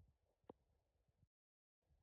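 Near silence, with a single faint tick about halfway through.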